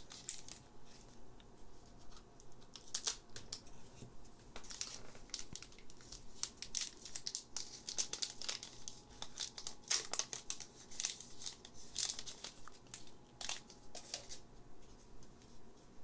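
Foil Pokémon TCG booster pack wrapper crinkling and being torn open by hand, with irregular crackling rustles throughout as the cards are worked out.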